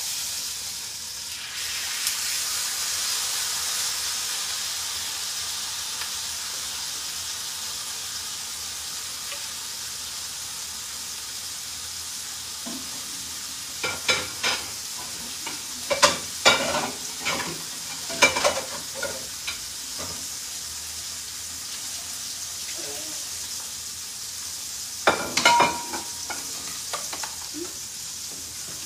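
Raw steak laid into a hot grill pan, sizzling at once and frying steadily. Scattered sharp clicks and knocks over the sizzle in the middle and near the end.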